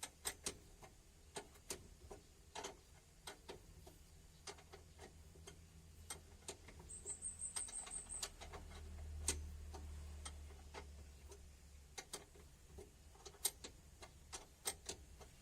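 Light, irregular metallic clicks and taps of hand tools and metal parts being handled, with a brief quick high chatter about seven seconds in.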